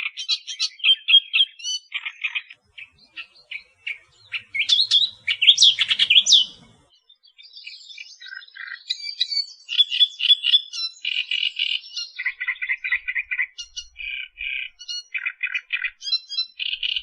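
Australian reed warbler singing: phrases of fast, harsh repeated notes alternating with higher chirps and whistles, with a short break about seven seconds in.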